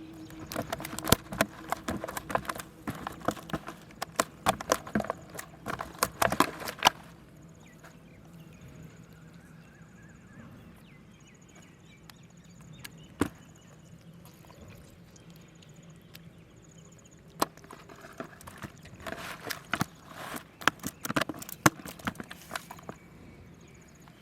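Two spells of rapid, irregular sharp knocks and clatter a few seconds long each, with a single knock between them.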